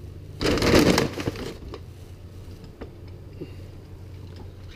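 A pile of metal cotter pins rattling and scraping against a wooden workbench for about a second, followed by a few light clicks as a pin is picked out.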